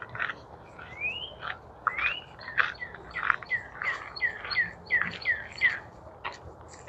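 Several birds chirping and calling: two rising whistled notes early on, then a run of short down-slurred whistles, about two a second, through the middle, over scattered sharp chirps.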